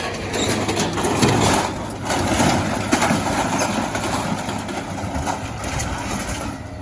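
A heavy machine's engine running at a scrap yard, with scrap metal scraping, clanking and crunching as it is moved.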